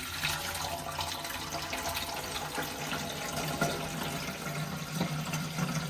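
Drinking water poured in a steady, unbroken stream into a humidifier's water tank.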